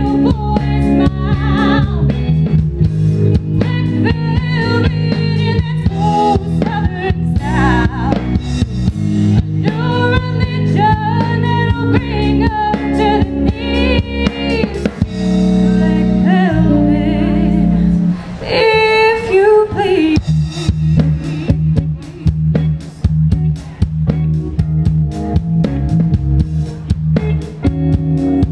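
Live rock band playing a song: a woman singing lead over electric guitars and a drum kit.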